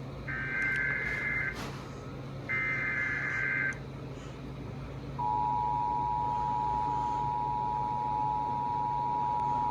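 Emergency Alert System SAME header: two roughly one-second bursts of warbling digital data tones about a second apart, then the EAS two-tone attention signal starting about five seconds in and holding steady. It marks the start of a new weather warning broadcast.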